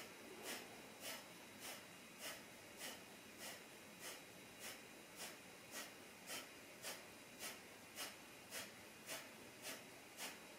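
Kapalabhati breathing: short, forceful exhalations through the nose, evenly spaced at a little under two a second, each a brief, faint puff of air.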